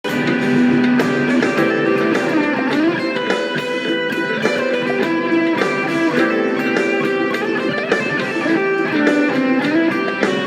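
Electric guitar played through a Fuzz Face Mini fuzz pedal, improvising single-note lead lines in A minor with held notes and string bends.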